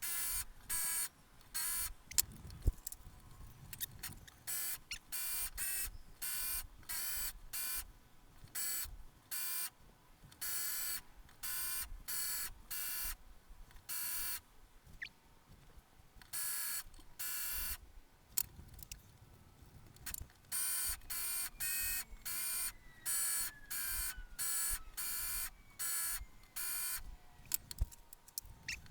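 Laminated white paper steel knife blade being stroked on a sharpening stone: a long run of short, shrill, ringing rasps, about one to two a second, with a few brief pauses.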